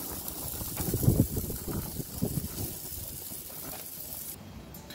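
Food sizzling on a hot gas grill with a steady hiss, and a few low knocks as ears of corn are set down on the grates. The hiss drops away about four seconds in.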